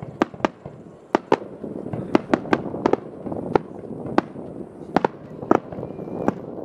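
Aerial fireworks display: a rapid, irregular series of sharp shell bursts, about two a second, with a continuous low rumble of further bursts between them.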